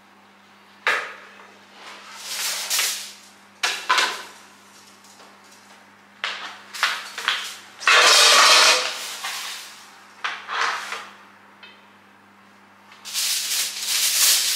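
Kitchen handling sounds: a few sharp knocks and several noisy scraping and rustling passes, the loudest about eight seconds in, over a steady low hum.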